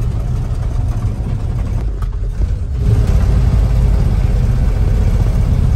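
1955 Mercury M100 pickup's engine pulling the truck along in second gear, a steady low rumble heard from inside the cab. It dips briefly about two seconds in, then gets louder about three seconds in.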